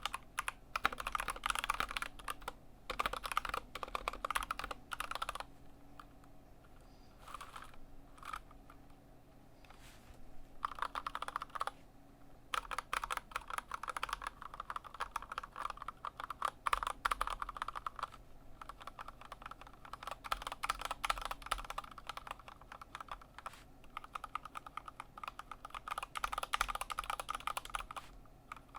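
Typing on an Anne Pro 2 mechanical keyboard with stock Kailh Box Red linear switches: fast runs of key clacks, with a sparser, slower stretch of keystrokes about a quarter of the way in.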